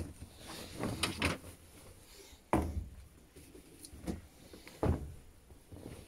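Denim jeans being handled and pushed into the drum of a Panasonic top-load washing machine: cloth rustling with several dull thuds and knocks against the drum, the loudest about two and a half seconds in.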